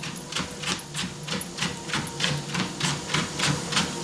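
Rhodesian ridgeback's paws striking a running treadmill belt in a steady trot rhythm, about four to five footfalls a second, over the treadmill's steady motor hum.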